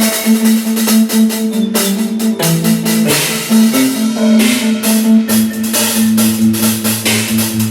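Large acoustic drum kit played in a busy jam, dense drum and cymbal strikes throughout, over sustained pitched accompaniment notes with a bass line that changes pitch a couple of times.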